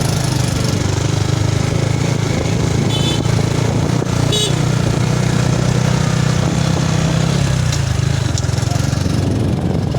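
Motorcycle engine running steadily while riding, its note dropping slightly about three quarters of the way through.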